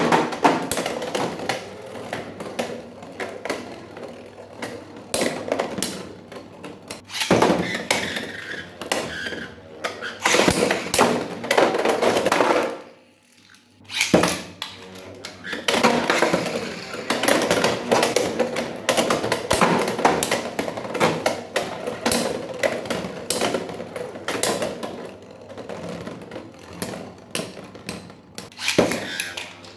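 Hard plastic clicks, taps and knocks from handling Beyblade X spinning-top parts, coming in irregular clusters with a short pause about 13 seconds in.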